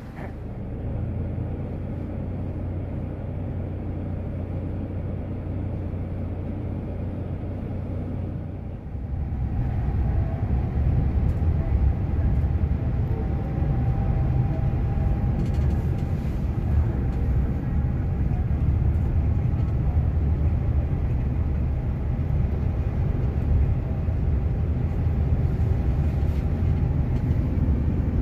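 Steady low rumble of a Toyota HiAce Premio shuttle van's diesel engine and tyres on the road, heard from inside the cabin. It grows louder about nine seconds in and then holds steady.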